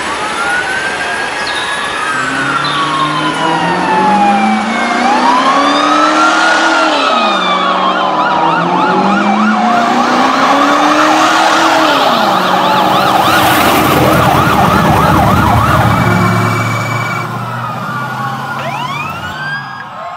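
Police car sirens, several wailing at once with pitches rising and falling, a lower rising-and-falling tone beneath them, and a fast yelping warble about twelve seconds in. Around thirteen seconds a rushing burst of noise with a low rumble comes in and lasts a few seconds.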